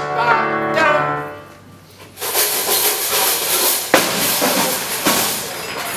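The last held notes of a song's music, then from about two seconds in a steady wash of audience applause, fading near the end.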